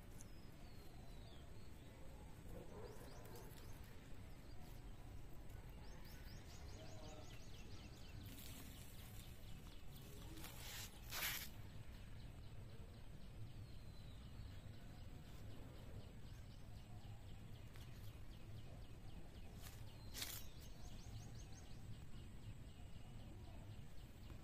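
Faint outdoor ambience: a steady low background hum with distant bird chirps and quick trills. A few short rustling noises stand out, the loudest about eleven seconds in.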